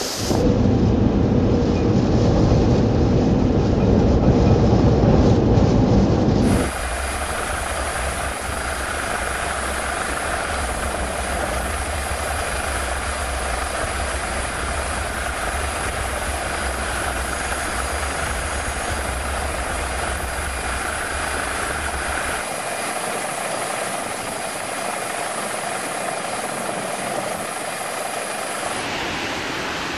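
Heavy storm surf and wind roaring on the microphone for about six seconds. It cuts sharply to a steady helicopter rotor and engine drone, whose low throb fades out near the end.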